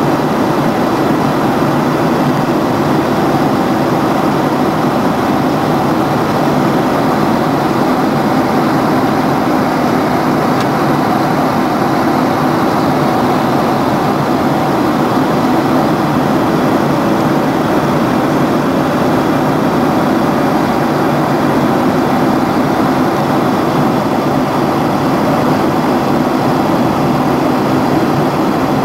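Steady jet airliner cabin noise at cruise altitude: the even, unchanging rush of the engines and the air streaming past the fuselage, heard from inside the cabin.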